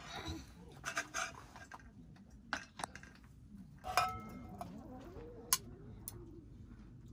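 Utensils and tableware tapping and clinking during a meal: several light clicks, and one louder ringing metallic clink about four seconds in.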